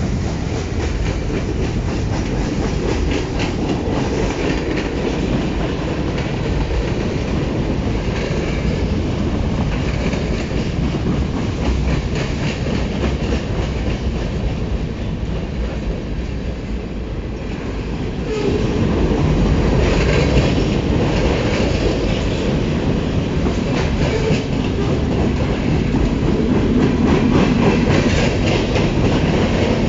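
CN freight train's cars rolling past at speed: a steady rumble with wheels clicking over rail joints. It grows louder about eighteen seconds in.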